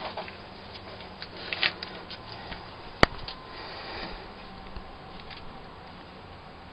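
Quiet handling noises, faint rustles and scrapes with a few small clicks, and one sharp click about three seconds in.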